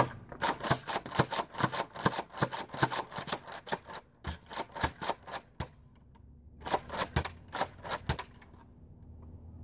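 Nerf N-Strike Elite Rampage pump-action dart blaster being slam-fired: the pump is worked back and forth with the trigger held down, giving rapid plastic clacks of about four a second. The clacking comes in three runs, with short breaks about four and six seconds in.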